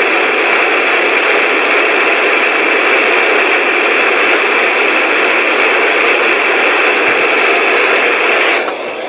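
Loud, steady static hiss from a weather radio receiver in place of the broadcast voice, the sign of the signal dropping out mid-message. Near the end it falls to a quieter, thinner hiss.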